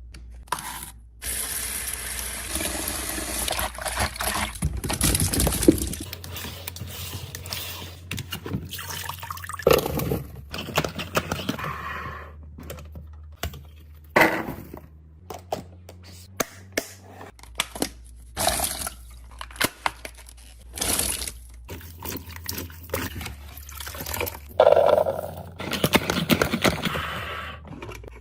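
Water running or pouring for about five seconds, then scattered knocks, clicks and short rustles of containers being handled.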